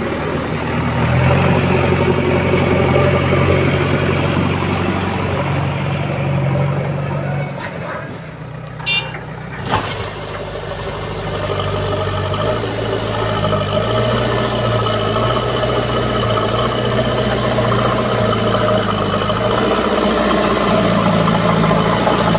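Diesel engines of a backhoe loader and tractor running, the engine note stepping up and down as the machine works. It drops lower about eight seconds in, with two sharp knocks, then picks up again.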